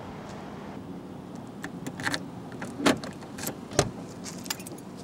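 Keys jangling and clicking at a car door lock, then the door latch clacks as the driver's door is unlocked and opened. The two loudest clacks come a little before the three-second mark and about a second later.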